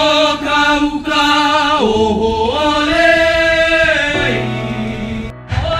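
Voices singing a slow Polynesian chant in long held notes that step down and back up in pitch, breaking off near the end.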